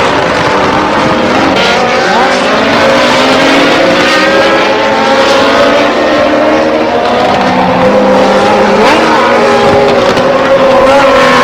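Several racing car engines at high revs together, their overlapping pitches rising and falling as the cars accelerate and pass.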